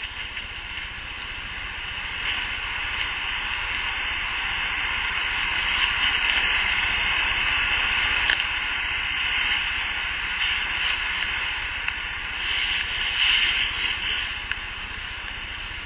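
A breathy hiss that swells over the first several seconds, eases, and swells again near the end, with a few faint clicks. The recordist counts it among the mouth sounds she attributes to Sasquatch.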